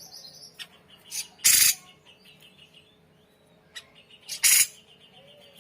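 Cucak jenggot (grey-cheeked bulbul) calling: two loud, harsh, rasping calls about three seconds apart, with quieter rapid chirping between them.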